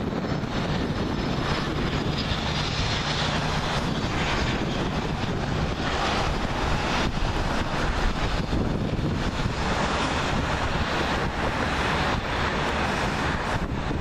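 Cessna Citation Excel business jet's twin rear-mounted turbofan engines running at approach power as the jet flies low over the runway to land: a steady jet rumble and hiss, with a faint high whine in the first few seconds.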